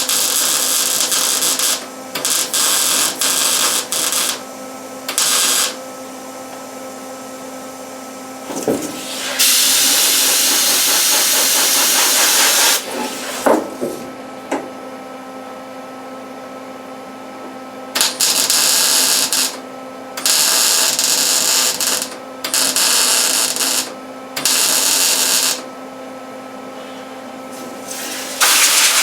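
MIG welder laying plug welds through drilled holes in a truck's sheet-metal roof skin: a run of about nine crackling, hissing bursts, each one to four seconds long, with short pauses between welds. A steady low hum carries on through the pauses.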